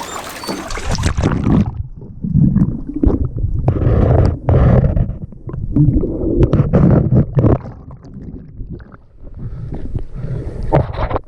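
Water splashing at the surface, then about a second and a half in the sound turns muffled: underwater gurgling and bubbling with scattered sharp clicks while rope is cut free from the boat's propeller.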